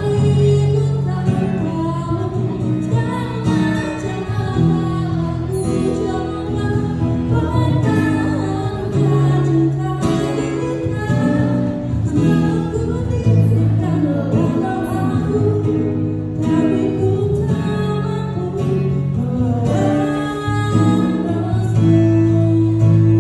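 A woman singing a slow song into a microphone, accompanied by an acoustic guitar, amplified through a PA speaker.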